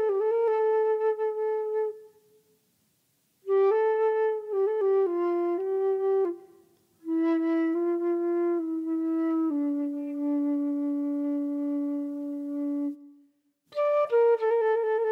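Solo flute playing a slow melody in short phrases with pauses between them, the middle phrase settling onto a long held low note before the melody starts again near the end.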